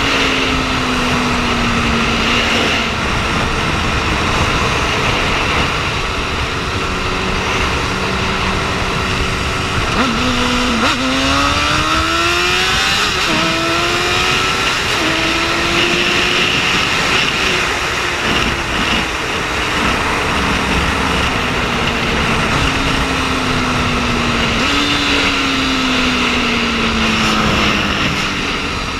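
Liter-class sport motorcycle engine under way, heavy wind rushing over the microphone. About ten seconds in, the engine revs up hard through several quick upshifts, its pitch climbing and dropping back with each gear, then winds down gradually as the bike slows.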